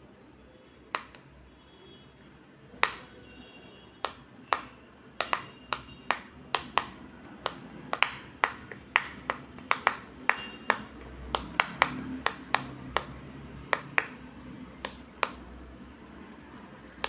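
Silicone pop-it fidget toy bubbles being pressed one after another, each giving a sharp pop. A few pops at first, then a quick run of about two or three a second, then a few more near the end.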